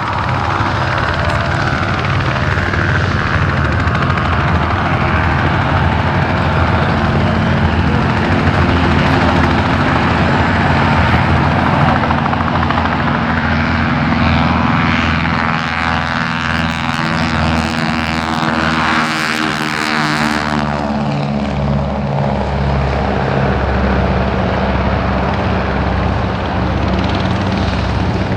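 Aircraft engine running loudly and steadily. Around two-thirds of the way in the sound sweeps down in pitch with a brief rushing burst, as the aircraft passes close by.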